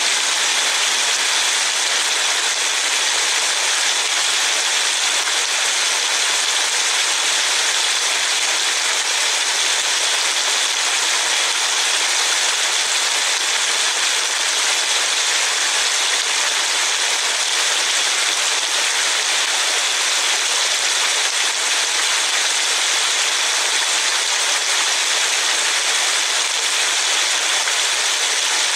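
Steady hiss of rain falling, heard from inside a car.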